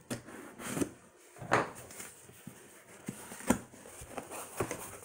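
Cardboard shipping box being handled and opened on a tabletop: a few separate scrapes and knocks of cardboard, the loudest about a second and a half in.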